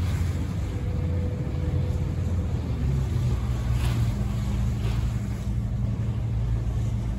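Steady low rumble of a vessel's engine running, with a faint hum that fades out a few seconds in.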